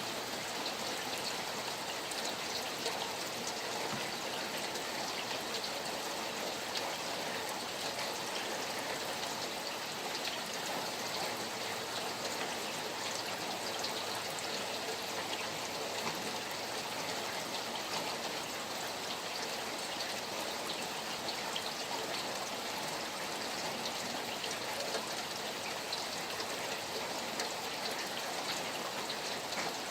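Steady rain falling alongside flowing stream water, an even rush of water dotted with many small drop ticks.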